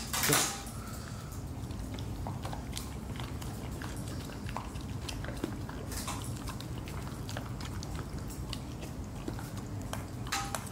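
Siberian husky puppy eating raw ground meat from a stainless steel bowl: wet chewing and licking with many small clicks and ticks. A brief sharp noise right at the start.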